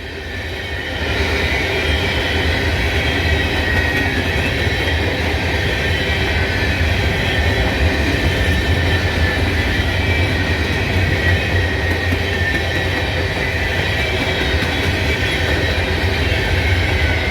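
Freight train cars rolling past on the rails close by, a loud, steady rumble of wheels on track with a thin high squeal from the wheels.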